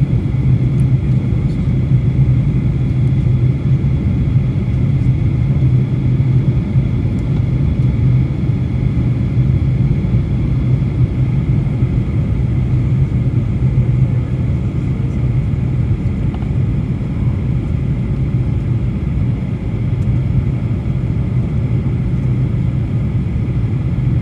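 Steady cabin drone inside a Boeing 737 airliner in flight: engine and airflow noise, a constant low hum.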